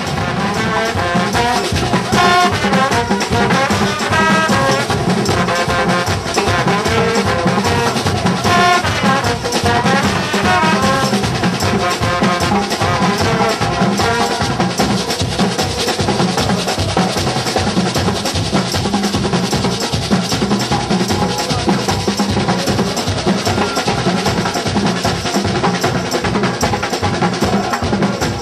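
Street parade band playing: trombones and trumpets carry a melody over steady drumming.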